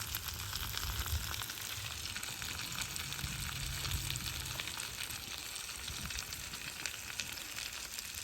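Chicken in a soy, chili and garlic sauce sizzling in a hot pan: a steady hiss with fine crackles.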